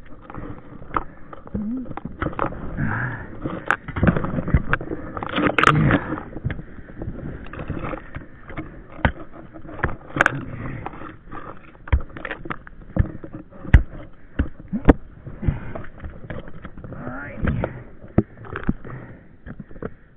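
Scrambling on a steep, snowy, frozen shale slope: irregular sharp knocks and scrapes as ice-tool picks and boots bite into the frozen ground, with rustling of snowy brush and a few short grunts of effort.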